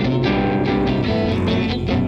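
Guitar-led band music with bass under it and a steady beat.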